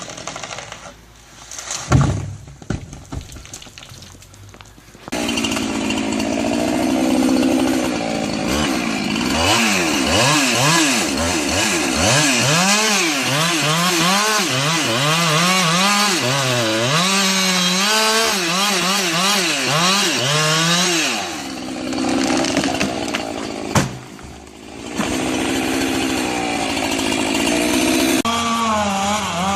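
A two-stroke chainsaw comes in loud about five seconds in and runs at high revs, its pitch dipping and rising again and again as it works through the wood. It eases off briefly twice and runs on.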